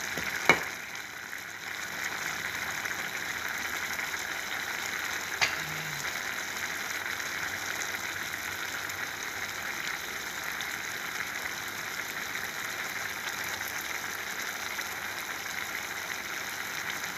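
A pot of rice in tomato broth bubbling steadily at a simmer on a gas stove. Two sharp clicks stand out, one about half a second in and a fainter one about five seconds in.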